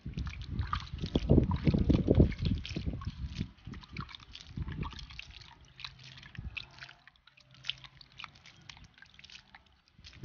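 Water poured from a plastic dipper splashing onto loose potting soil in a plant pot. The splashing is heaviest in the first three seconds or so, then thins to scattered splashes and drips.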